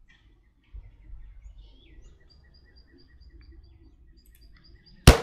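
Small birds chirping in short, repeated high notes over a faint low wind rumble, then a single loud, sharp rifle shot from an M1 Garand firing a .30-caliber round near the end.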